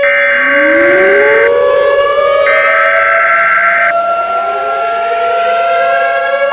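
Civil defense siren winding up, its pitch rising steadily over the first few seconds and then holding, with a steady lower tone underneath. Two long blasts of a higher alarm tone come about a second apart near the start.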